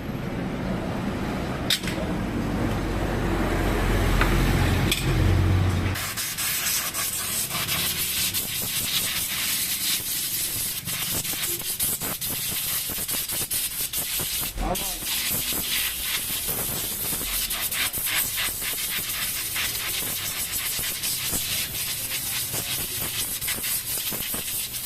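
A motorcycle engine runs, swelling louder, and cuts off abruptly about six seconds in. After that comes a long stretch of steady hiss with scratchy rubbing noises.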